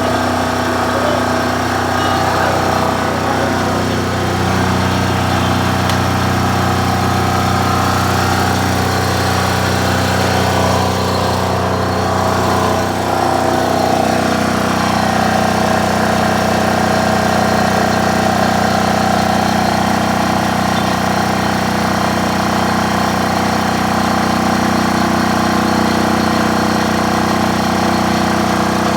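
SDG12800E diesel generator running steadily, its note shifting slightly about halfway through.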